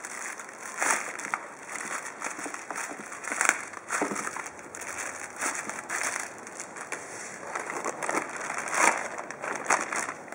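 Plastic packaging bags crinkling and rustling in irregular bursts as hands unwrap bagged parts, with louder crackles about a second in, at three and a half seconds and near nine seconds.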